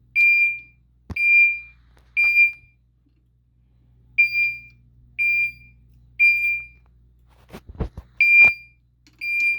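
Mircom fire alarm chime sounding code 3: single-pitched dings that ring and fade, in groups of three about a second apart, with a longer pause between groups. A few low knocks come just before the last group.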